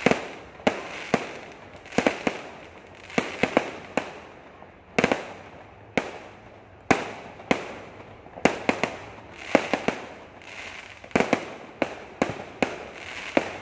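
Aerial fireworks going off in quick succession: sharp bangs at irregular spacing, one to three a second, with a steady hiss between them.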